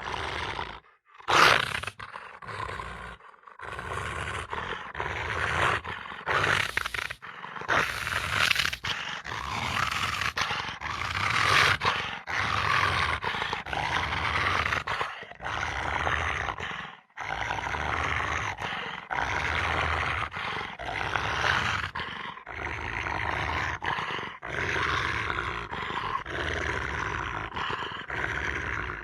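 Velociraptor creature sound effects: a run of harsh, raspy roars and growls, one call after another with short breaks, the loudest a sharp call about a second and a half in.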